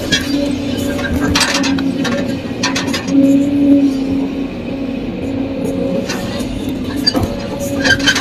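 Kobelco SK200 excavator's diesel engine and hydraulics droning steadily, heard from inside the cab as the machine swings and digs. A few sharp clanks and rattles break in over the drone.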